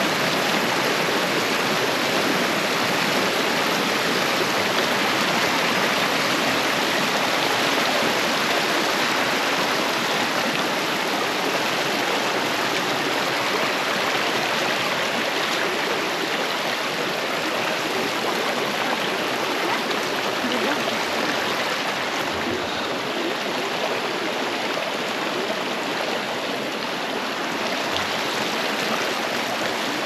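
Fast-flowing water rushing steadily and evenly, like a mountain stream in spate, with no break.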